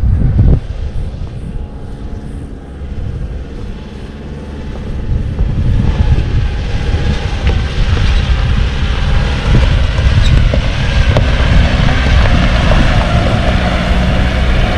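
A motor vehicle on the move: a steady low rumble with a wide rush of noise over it. The sound drops back after the first moment and grows louder again from about six seconds in.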